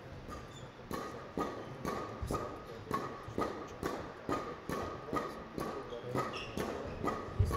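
Sharp knocks repeating in a steady rhythm of about two a second, starting about a second in.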